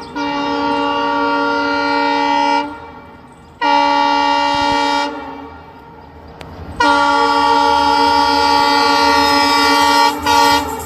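Indian Railways electric locomotive's horn sounding in long, steady blasts: three long ones, the third the longest, then a short blast near the end.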